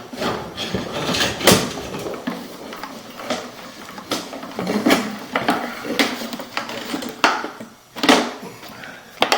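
Irregular knocks, clicks and clatter, about one every half second to second, with the loudest near the start and a second or so before the end.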